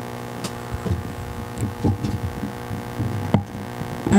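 Steady electrical hum through the sound system, with irregular soft thumps and rubbing from a microphone being handled, and a sharper knock near the end.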